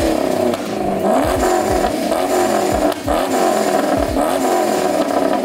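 Cars in an exhaust competition being revved hard, among them a Chevrolet Camaro SS V8 and a Nissan Skyline R32. Their engines drone steadily under repeated rising revs about once a second, with low thumps now and then.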